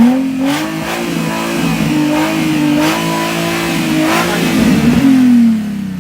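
Nissan 350Z's VQ35DE 3.5-litre V6 revved up and held at high revs against the rev limiter, its pitch wavering, with a few sharp cracks. About five seconds in the revs drop back toward idle.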